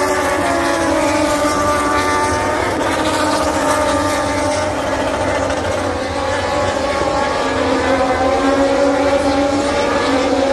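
MotoGP racing motorcycles running on the circuit: a steady drone of several overlapping engine notes that slowly shift in pitch.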